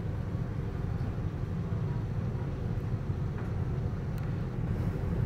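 Norfolk Southern diesel locomotive at the head of an intermodal freight train, giving a steady low rumble as it approaches.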